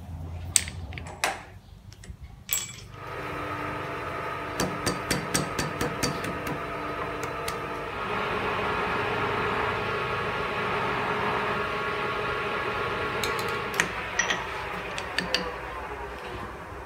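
Metal lathe with a large four-jaw chuck starting up after a few knocks of handling, then running with a steady hum of several tones. About eight seconds in it grows louder and rougher as the tool cuts into an SG iron bar, and it winds down just before the end.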